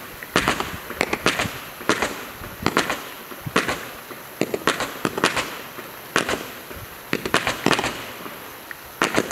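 Fireworks going off: a string of sharp bangs, about one or two a second at uneven intervals, with a hiss between them.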